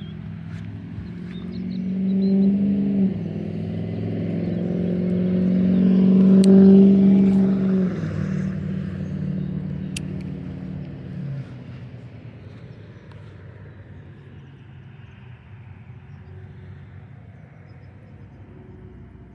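A motor vehicle's engine passing by. It grows louder to a peak about seven seconds in, its pitch drops as it goes past, and it fades away by about twelve seconds in.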